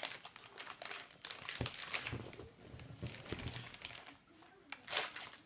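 A McCoys crisp packet crinkling and rustling as a small child's fingers rummage inside it, in a run of irregular crackles, loudest near the end.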